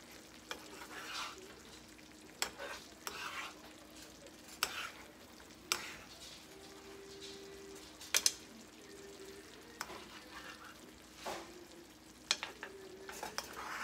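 A spoon scraping and tapping against a skillet as cream sauce is spooned over trout fillets, a dozen or so scattered clicks over a faint, steady sizzle of the simmering sauce. A faint steady hum runs underneath.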